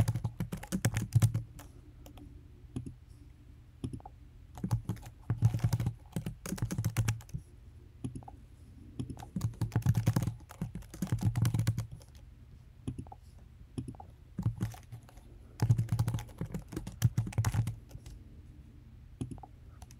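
Typing on a computer keyboard in short bursts of quick keystrokes, with pauses of a second or two between bursts.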